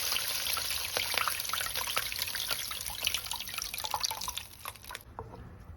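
Water added to a hot pan, sizzling and crackling, growing gradually quieter and cutting off suddenly about five seconds in.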